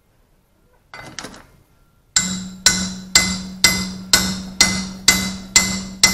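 A hammer striking a cast 316 stainless steel boat fairlead held in a bench vise, about two blows a second, each with a short metallic ring, hammering it further over to test how far the casting bends without breaking. A brief clatter comes about a second before the blows begin.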